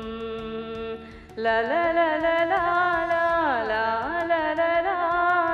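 A woman singing a Tamil film melody solo: she holds one long note, takes a short breath about a second in, then sings a long sustained phrase with sliding ornaments that dips in pitch and climbs back near the middle.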